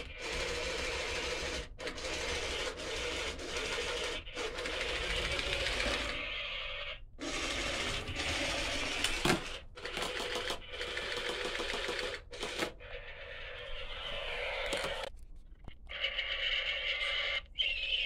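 Battery-powered robot spider toy's walking mechanism running, a steady mechanical whir from its small motors driving the plastic legs. It stops and starts several times, and near the end it gives way to a quieter, higher sound.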